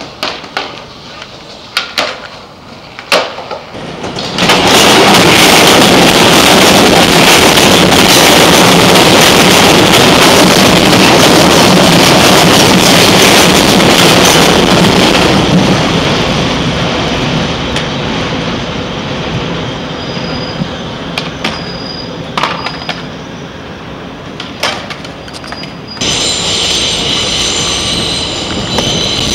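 MTA elevated subway train running over the steel viaduct overhead: a loud rumble sets in suddenly about four seconds in, after a few sharp clacks, and slowly dies away. Near the end a high, steady wheel squeal starts up.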